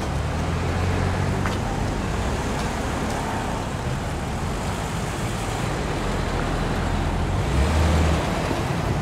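Cars driving slowly past on a street: steady engine hum and tyre noise, swelling as a car passes close near the end.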